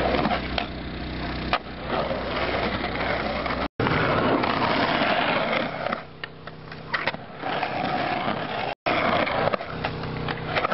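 Skateboard wheels rolling over rough concrete, with sharp clacks of the board hitting the ramp about a second and a half in and again around seven seconds in. The sound cuts out abruptly twice.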